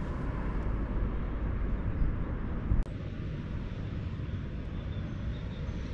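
Steady low rumbling outdoor background noise, with a click and a momentary dropout a little before the halfway point.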